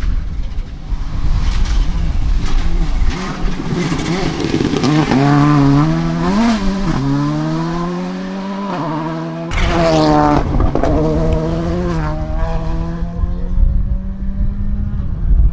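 Volkswagen Polo GTI R5 rally car's 1.6-litre turbocharged four-cylinder engine at full throttle, its pitch climbing and dropping through several gear changes. About halfway through the sound breaks off abruptly and comes back, and the pitch then falls and settles into a steady note.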